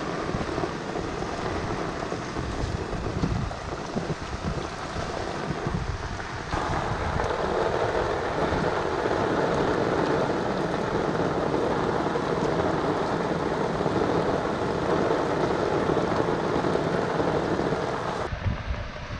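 Steady rain on gutter water, and rainwater rushing through a street curb-inlet grate as the leaves clogging it are pulled away, with wind buffeting the microphone. The rushing water gets suddenly louder about six seconds in and drops back near the end.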